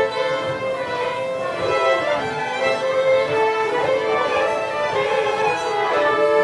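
A group of fiddles playing a Swedish polska from Boda together, a lively dance tune in three-beat time.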